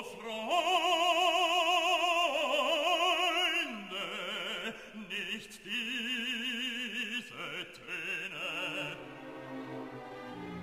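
Background music: an operatic voice holding long notes with a wide, even vibrato, stepping between pitches, with the loudest passage in the first few seconds.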